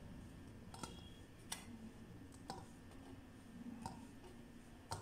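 Faint soft taps, about five of them a second or so apart, as fried bread gulab jamun balls are dropped one at a time into sugar syrup in a steel bowl.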